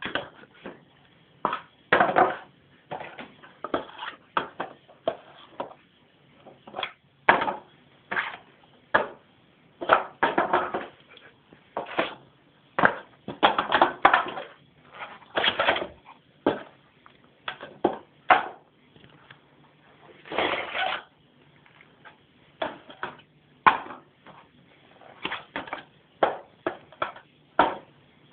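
A cat playing and pawing on a wooden surface: irregular bursts of rustling, scraping and crinkling, some short and some lasting about a second, with brief pauses between them.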